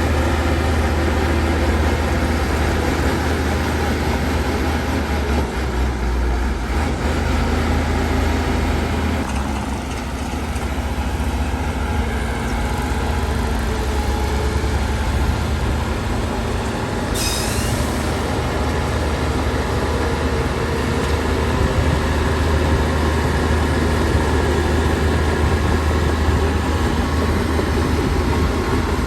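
Heavy diesel earthmoving machinery running steadily with a deep engine drone: a Shantui DH17 C2 crawler bulldozer working with dump trucks. About seventeen seconds in there is a short, sharp high hiss.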